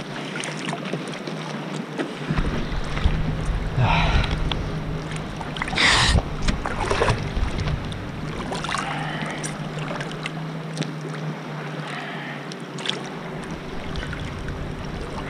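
Lake water sloshing and splashing around a wakeboarder floating with his board, with a few louder splashes. A boat engine's steady low hum comes in after a couple of seconds and fades near the end.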